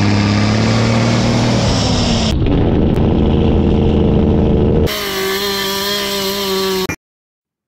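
Diesel engine of a log truck running under way, then, about five seconds in, a chainsaw running at a steady high pitch while cutting a log for about two seconds before it cuts off abruptly.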